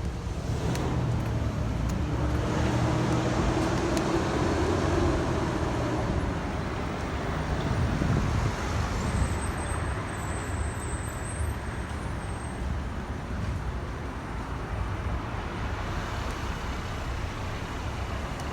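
Road traffic and wind noise: a steady rushing with a low rumble, a little louder around three to eight seconds in.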